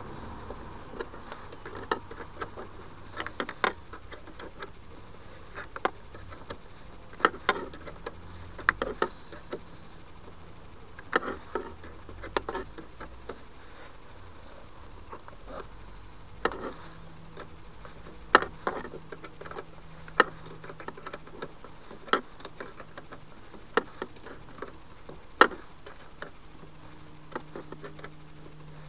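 Irregular sharp metallic clicks and taps of a wrench and hands working a brass battery cut-off switch on a car battery's negative terminal, a few of them much louder than the rest.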